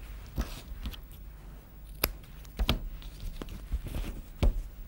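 Handling noise from a branch-frame weaving loom and its fabric strips: a few short, sharp clicks and light knocks spaced irregularly, the loudest one near the end.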